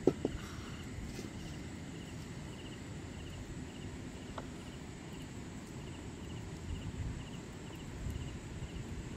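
Insects chirping in a steady repeating pattern, about twice a second, over a low outdoor rumble. A couple of sharp metal knocks right at the start as a large metal pan is set on the fire.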